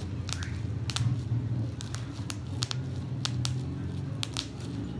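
Plastic bubble wrap being handled and crinkled, with irregular sharp crackles, over a steady low hum.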